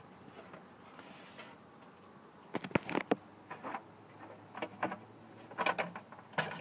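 Plastic cover of a Bruno SRE-2750 stair lift being handled and lifted off: quiet at first, then several clusters of light clicks and knocks from about two and a half seconds in.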